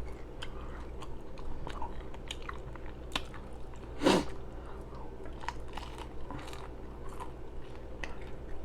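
A person chewing a mouthful of pastrami burger with loud, wet open-mouthed smacking. A steady run of small clicks and squelches, with one louder short mouth sound about four seconds in.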